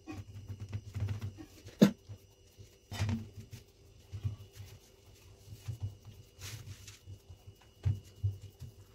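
Hands pressing and patting a soft, crumbly khoya mixture flat into an aluminium tray, with irregular dull thumps and a sharper knock about two seconds in.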